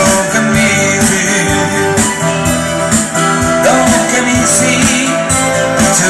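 Live music on electric guitars over a steady beat.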